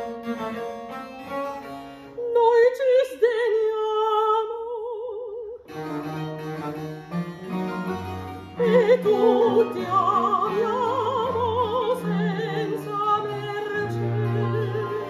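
Mezzo-soprano singing an operatic aria with a wide vibrato, accompanied by cello, harp and lute. Voice and instruments break off briefly about five and a half seconds in, then resume.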